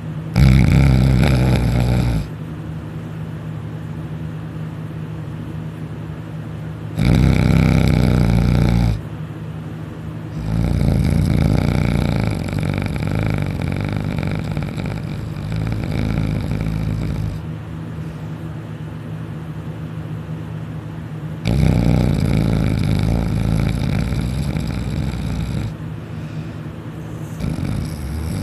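A man snoring loudly in deep sleep: several long snores, a few seconds apart, each lasting about two to four seconds. A steady low hum runs underneath.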